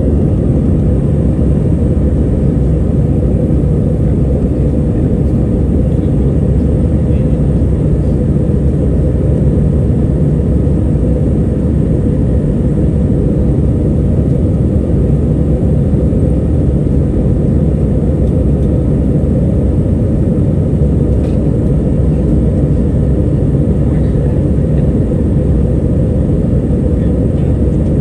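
Airbus A321 cabin noise during the climb after takeoff: a steady, loud, low rumble of the jet engines and the airflow over the fuselage, heard from inside the cabin.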